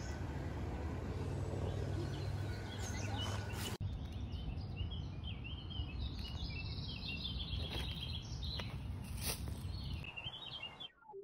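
Woodland birds chirping in many short calls over a steady low rumble.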